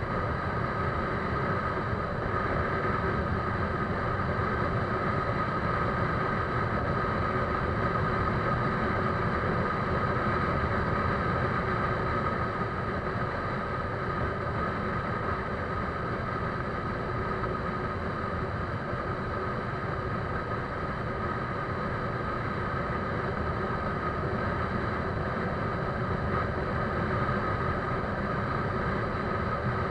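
Steady engine drone that holds even throughout, with a few constant high tones over a low rumble.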